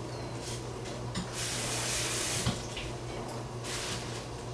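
Water running in on-and-off gushes: a short burst, a longer one of about a second from about a second and a half in, then another short one near the end, over a steady low hum.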